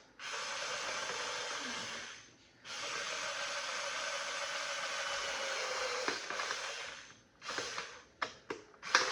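Two long hisses from a spray can, about two and four seconds long, each starting and stopping sharply; the second carries a faint tone that sinks slightly before it cuts off. Light clicks and taps follow near the end.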